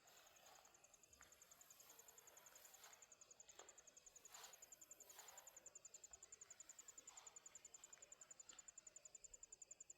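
Faint cricket trill: a high, rapidly pulsing chirp that keeps going without a break.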